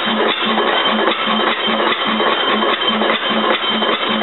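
1904 Deutz vertical Otto-cycle 4 hp engine running steadily, with an even beat about two and a half times a second and many fainter clicks between the beats.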